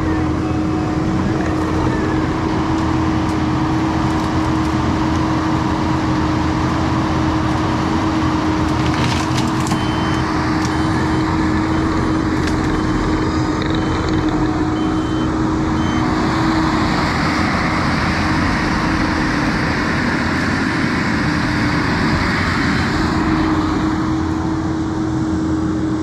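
Kubota SVL95-2s compact track loader's diesel engine running steadily under load with a constant whine, as it works a tree shear. A few sharp cracks come about nine to ten seconds in, and a louder hiss rises from about sixteen to twenty-three seconds in.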